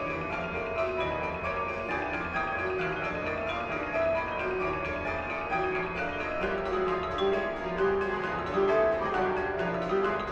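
Instrumental music: a dense run of short pitched notes following one another quickly.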